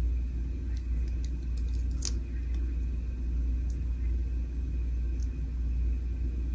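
A steady low rumble of background hum, with a few faint light clicks from handling a lip-gloss bottle and drawing its cap-and-wand applicator out.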